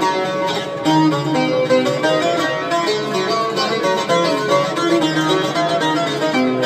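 Instrumental music on plucked string instruments, a steady stream of quick notes.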